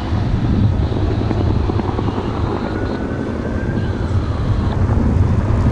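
Firefighting helicopter flying, its rotor and engine running steadily, with a faint whine that rises and falls in pitch.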